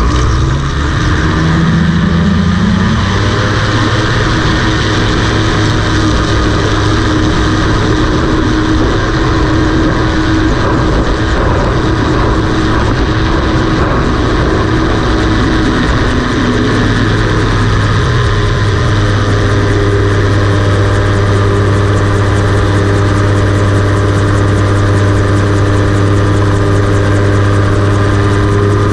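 Rotax 582 two-stroke twin engine of a homebuilt float gyroplane, with its pusher propeller, running at high power on a take-off run across the water. Its note rises over the first few seconds, then holds steady, with the low hum getting stronger a little past halfway.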